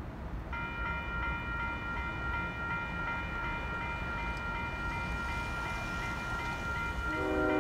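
Railroad grade-crossing signal bell starts ringing about half a second in, at about three strikes a second, as the crossing activates for an approaching train. Near the end a locomotive horn starts sounding, over a low steady rumble.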